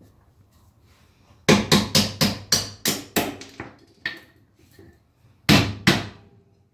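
Hammer blows on metal, a quick run of about nine at roughly four a second, then a pause and two more, knocking at a rust-seized part of a Honda Civic's rear suspension that will not come out.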